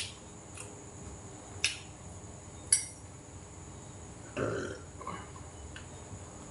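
A man burping once, briefly, with a hand over his mouth, about four seconds in. Before it come three sharp clicks of a metal spoon and chopsticks against the dishes.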